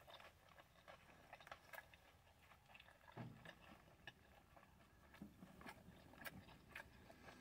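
Faint chewing of a mouthful of a crispy chicken wrap with coleslaw: scattered small mouth clicks and smacks.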